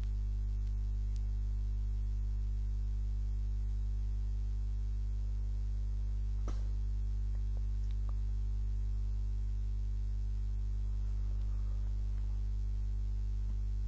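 A steady low hum, with a few faint clicks about halfway through.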